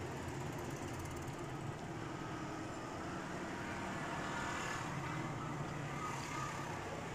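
Steady low background rumble, like distant traffic, with faint eating sounds from a spoonful of noodles about four seconds in.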